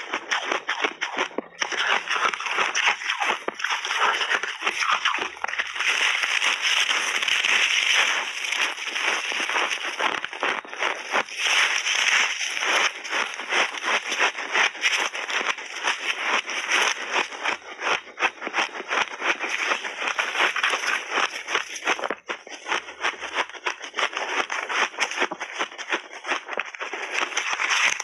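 Close-miked crunching of dyed shaved ice being bitten off in big mouthfuls and chewed: dense, continuous crackling, with a brief pause about 22 seconds in.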